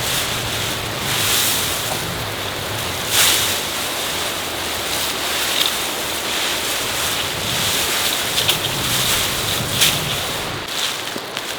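Steady rushing noise, like wind on the microphone, with a few sharp clicks.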